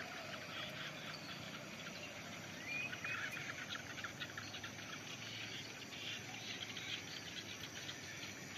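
Insects chirring steadily, a dense texture of fine chirps, with two short rising whistles about three seconds in.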